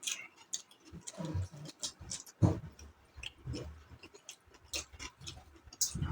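Close-up chewing and wet mouth clicks of someone eating raw-fish kinilaw, with irregular smacks and soft thuds several times a second.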